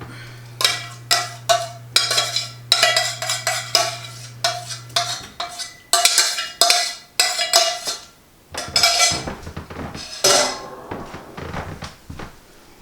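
Metal utensil scraping and knocking against a metal pot again and again, each stroke ringing briefly, as sauce is scraped out of a saucepan into mashed potatoes. A low steady hum stops about five seconds in.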